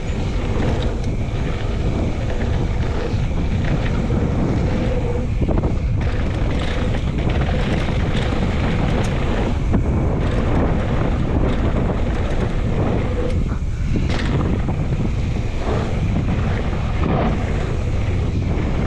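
Wind buffeting the microphone of a mountain bike at downhill speed, over the steady rumble of knobby tyres on a dirt trail. Short knocks and rattles come from the bike hitting bumps.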